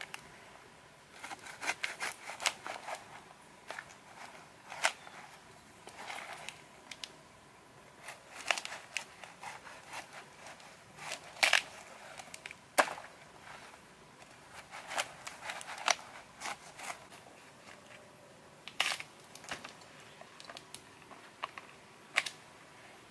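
Large knife cutting and prying through the rind and flesh of a ripe jackfruit: irregular sharp cracks and crunches in clusters, with short pauses between strokes.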